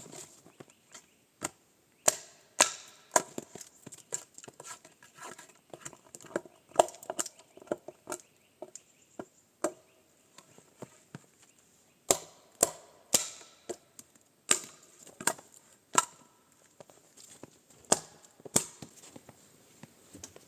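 A hand tool striking wood in irregular sharp knocks, often two or three in quick succession with short pauses between.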